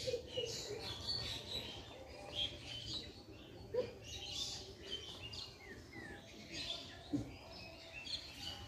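Small birds chirping and twittering repeatedly, with short falling high calls over a steady background hum. Two brief lower sounds stand out, one about a third of the way in and one near the end.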